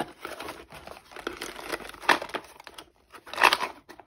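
Packaging crinkling and rustling as a small box of markers is handled, in irregular bursts with the loudest crinkles about two seconds in and again near the end.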